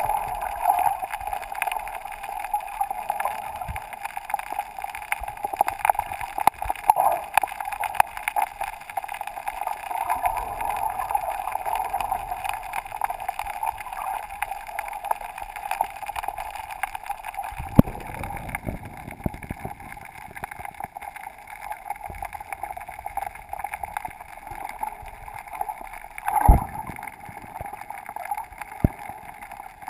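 Muffled underwater sound recorded through a GoPro's waterproof housing: a steady hum with scattered faint crackles, and two dull knocks, one a little past halfway and a louder one near the end.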